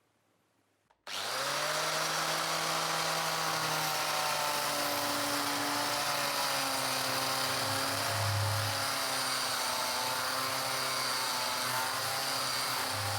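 Electric power tool running steadily with a hissing grind, its motor pitch wavering slightly as it is loaded against the metal. It cuts in abruptly about a second in, after near silence.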